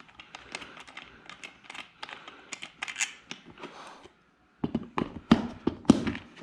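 Plastic paddle-board fin being handled and fitted into its fin box: a string of small clicks, taps and scrapes, then louder knocks over the last two seconds.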